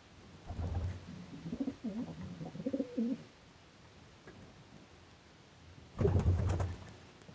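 Pigeon cooing: a low, wavering coo phrase lasting about two and a half seconds, then a shorter, louder burst near the end.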